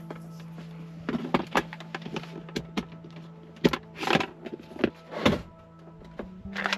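Handling noises in a truck cab: clicks, knocks and plastic crinkling as items are moved about, with a sharp click about four seconds in as a plug goes into a power strip. A steady low hum runs underneath.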